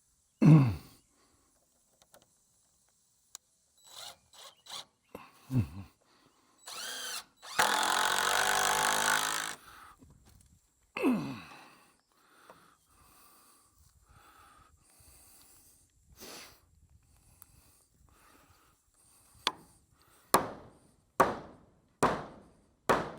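Carpentry on a barn header board: a few heavy knocks, a power drill running for about two seconds near the middle, then a run of sharp hammer strikes about one a second near the end.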